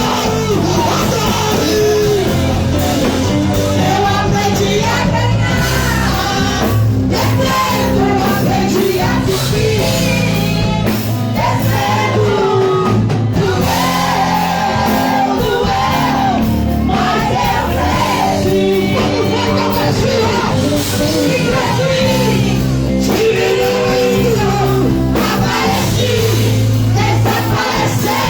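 Loud music with singing voices and shouting over steady sustained low notes.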